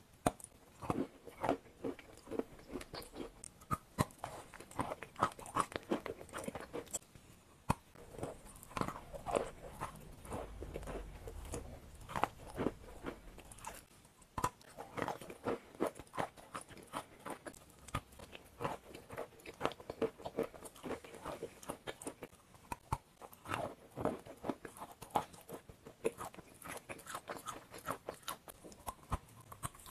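Biting and chewing a block of white chalk, picked up close by a clip-on microphone: many sharp, dry crunches at an irregular pace, with crumbly grinding between bites.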